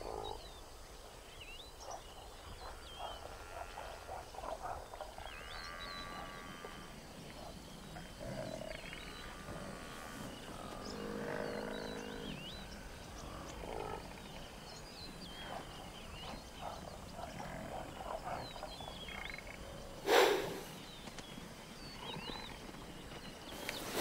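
Lions giving low growling calls now and then, over a steady bush background of faint high chirps. About twenty seconds in there is one brief, loud rush of noise.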